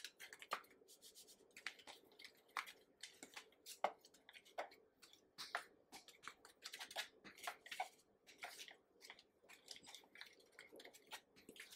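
Fork stirring and scraping through a dry flour-and-cornmeal breading mix in a bowl, blending in the seasoning: a faint, irregular run of short scratchy strokes.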